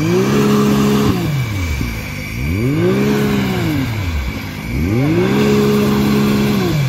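Off-road 4x4's engine revved hard three times, each time climbing in pitch, holding near the top for about a second, then dropping back.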